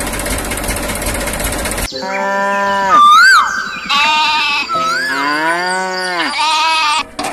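About two seconds of hissing noise, then cattle mooing: several long calls that rise and fall in pitch.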